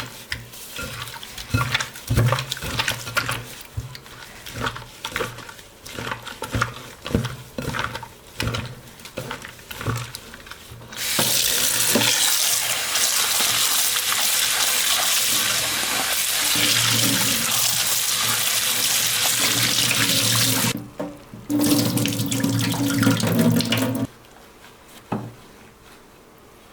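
Kitchen tap running into a sink in a steady stream for about ten seconds, shut off briefly and run again for a couple of seconds before stopping. Before the water, a stretch of light knocks and clatter.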